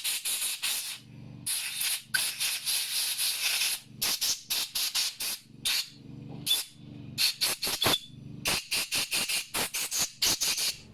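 Compressed air hissing through the jets and passages of a lawnmower carburetor to blow out dirt, in a string of short blasts with a longer one of about two seconds.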